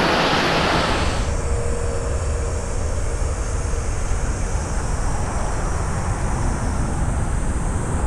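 Loud jet engine noise from a landed Airbus A320neo on its runway rollout, which cuts off abruptly about a second in. It gives way to the steady low rumble of a distant Boeing 737-800 on final approach.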